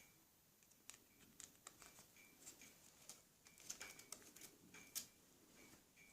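Faint clicks and taps of small metal parts being handled while a bicycle derailleur jockey wheel is fitted, with a louder click about five seconds in, over a faint regular ticking.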